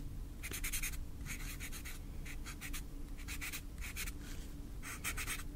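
A pen writing on paper: runs of quick scratchy strokes in short bursts, with brief pauses between them.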